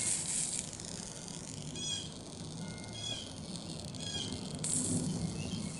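Hot soldering iron sizzling on fluxed lead came of a stained-glass frame joint, in two short hissing spells: one at the start and one near the end. A small bird chirps three times in between.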